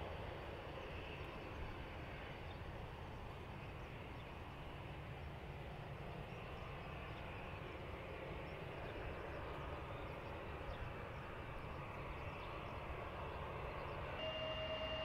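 Distant jet airliner engines giving a steady, low rumble of airport background. A little before the end a steady pure tone starts.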